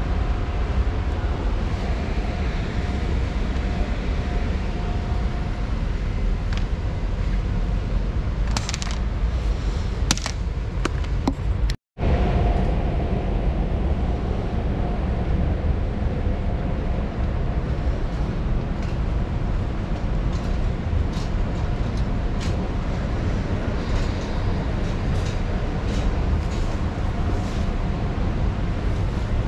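Steady low rumble of a large store's background noise, with scattered light clicks and rustles; the sound cuts out for a moment a little before halfway.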